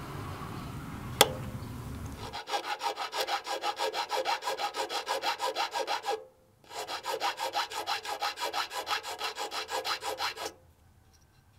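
A flat hand file rasping back and forth along the edge of a small, thin aluminium blank cut from a beer can, about seven quick strokes a second in two runs with a short pause between them. Before the filing starts there is a low rustle of handling and one sharp click about a second in.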